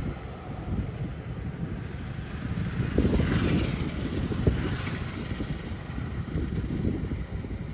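Wind buffeting the microphone over heavy rain, with a louder gust and more hiss from about three to five seconds in.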